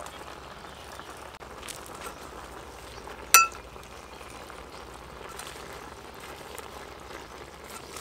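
Broth simmering in a large pan of noodles and vegetables, a steady bubbling hiss. A little over three seconds in, a metal ladle strikes the pan once with a sharp, ringing clink.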